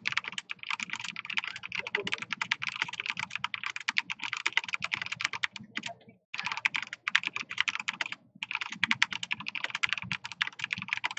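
Fast, continuous typing on a Corsair K65 RapidFire mechanical keyboard with linear Cherry MX Speed Silver switches and blank DSA keycaps: a dense run of rapid key clicks. It stops briefly twice, just after six seconds in and again about two seconds later.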